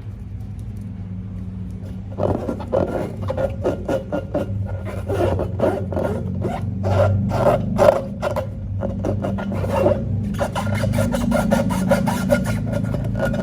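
Slime being mixed and worked in a container: a rapid run of short, wet scraping and rubbing strokes that begins about two seconds in, stops for a couple of seconds past the middle, then starts again.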